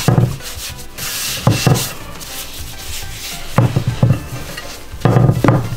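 Hands rubbing and sweeping rice flour across a marble countertop, a dry scraping hiss, broken by several dull thumps about every one and a half to two seconds as dough is handled and set down on the stone.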